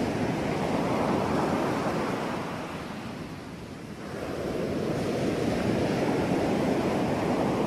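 Ocean surf: a steady rush of waves that ebbs about three seconds in and builds again.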